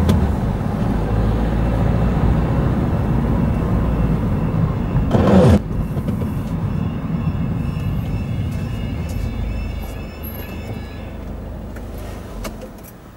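Car driving and slowing to a stop, with steady engine and road rumble. There is a brief louder rush about five seconds in, and the noise eases off over the last few seconds as the car comes to rest.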